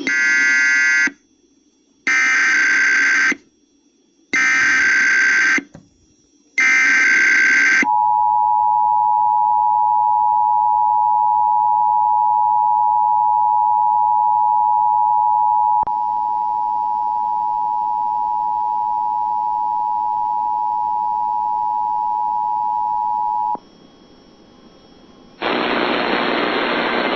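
Emergency Alert System activation: four short bursts of SAME digital header tones about two seconds apart, then the two-tone EAS attention signal held steady for about sixteen seconds, dropping slightly in level partway through. After a short pause the spoken warning message begins near the end.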